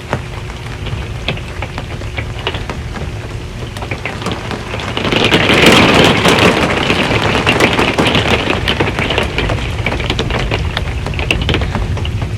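Rain drumming on a metal RV roof, a dense patter of individual drops. About five seconds in it swells much louder, then slowly eases back.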